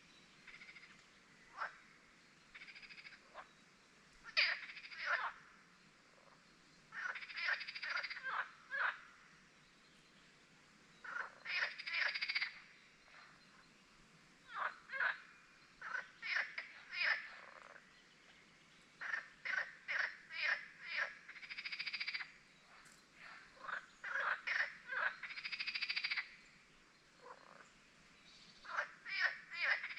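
Frogs calling at a spring lake in short runs of rapid pulsed notes, a run every few seconds, some overlapping, over faint background ambience.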